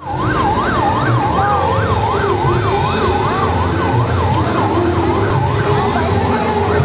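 Electronic siren yelping, its pitch sweeping rapidly up and down about three times a second, over a steady low hum and crowd noise.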